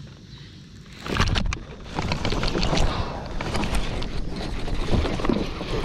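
Close handling noise from a fishing kayak. Rod, reel and tackle are being handled, making a string of clicks, knocks and rustles with low thumps against the kayak, starting about a second in.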